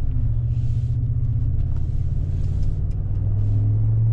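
Ford F-150 pickup with a Flowmaster two-chamber dual exhaust, heard from inside the closed cab while cruising at low revs, about 1,500 RPM: a steady low exhaust rumble with faint road noise above it.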